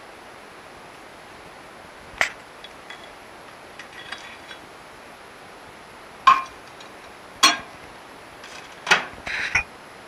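A handful of sharp clicks and clinks as a Defy microwave oven is loaded: the door opened and shut and a wooden clothes peg with a metal spring set down inside. One knock comes early and four come in the second half, the loudest of them in quick succession.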